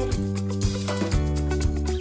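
Background music with a steady beat and held bass notes.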